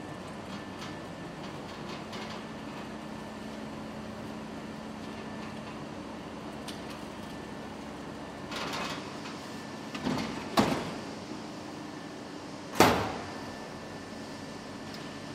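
Wheeled build unit being pushed into an HP industrial 3D printer: a short rolling rush, then clunks as it docks, the loudest a little before the end. A steady hum of the printers runs underneath.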